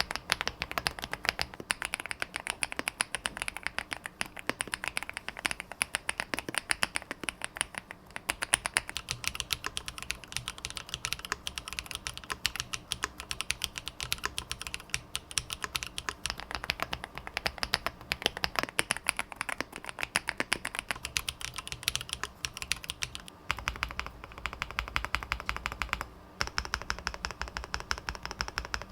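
Fast, continuous typing on a Chilkey ND-series custom mechanical keyboard, a steady stream of key strikes. From about three quarters of the way through, the strikes have a deeper, fuller sound, with a couple of short pauses.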